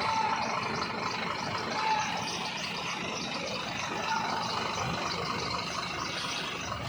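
Heavy truck engine running steadily at low revs, with a dense, even din around it.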